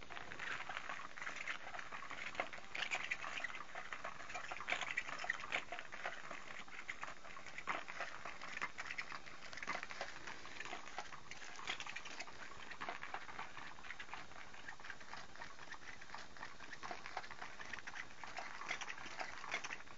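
Battery-powered Cat's Meow cat toy running, its mouse-tail wand scratching and rustling about under the round fabric cover in irregular crackly spurts.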